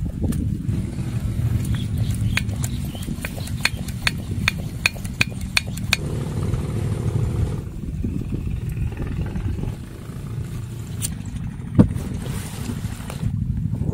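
Remote-fuel camping stove being set up: light clicks, about two a second, as the fuel bottle and hose valve are fitted and opened, then one sharp click near the end as the burner lights, with a short hiss of gas after it. A steady low rumble runs underneath.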